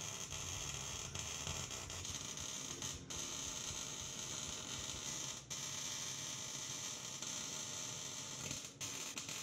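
Welder arc crackling and hissing steadily as the new steel rocker panel is welded from underneath, run until the metal melts through into the brace below. There are short breaks about 3 and 5½ seconds in and again near the end.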